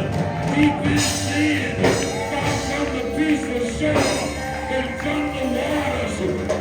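Live church band music with bass and drums, and voices singing.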